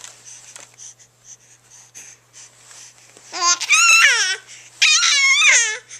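A baby making two long, high-pitched, wavering vocal noises, the first starting about three seconds in and the second following after a short pause. Faint short ticks come before them.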